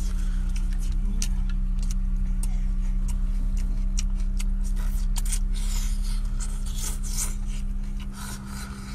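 Close mouth sounds of eating braised octopus: many wet smacks, sucks and clicks as tentacles are chewed and slurped. Underneath runs a loud steady low hum.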